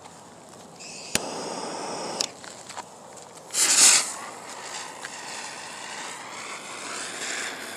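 Ground spinner firework hissing as it spins on concrete. It starts hissing about a second in with a sharp click, flares to a much louder hiss about three and a half seconds in, then settles into a steady hiss.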